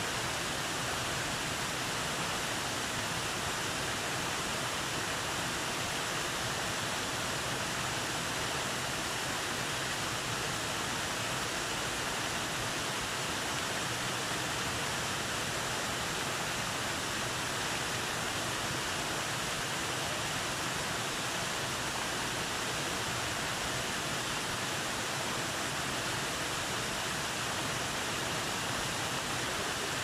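Small waterfall with two streams of water pouring over rocks, a steady even rushing of falling water.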